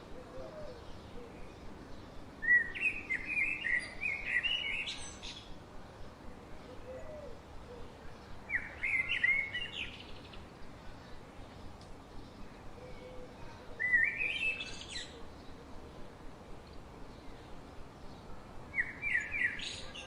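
A songbird singing four short phrases of quick chirping notes, one about every five seconds, over a faint steady background hiss.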